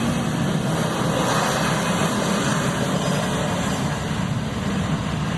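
Jet airliner engines during a take-off climb-out, a loud, steady rumble that eases a little near the end.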